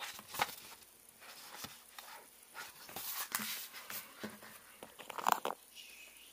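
A thin PVC decorative film sample and a spiral-bound sample book handled by hand: scattered rustles, taps and clicks, with a brief squeak about five seconds in.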